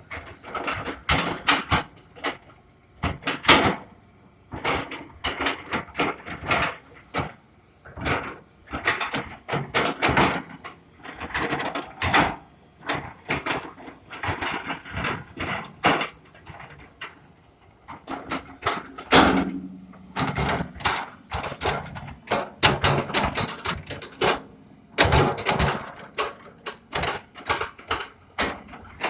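Irregular clattering and knocking, several short hard knocks and scrapes a second, with louder clusters about twelve, nineteen and twenty-five seconds in.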